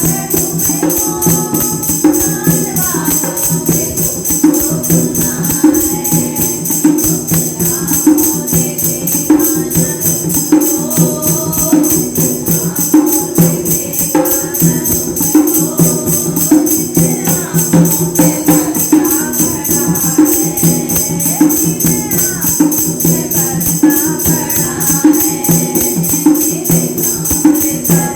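Women singing a Hindi Krishna bhajan over a steady, even percussion beat, with a sustained low tone underneath.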